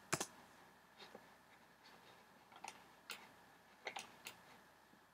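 Faint, irregular clicking at a computer, about half a dozen short clicks spread over a few seconds.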